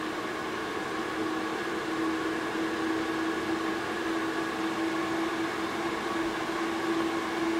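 Welov P100 air purifier's fan running: a steady rush of air with a hum that grows a little stronger about a second in.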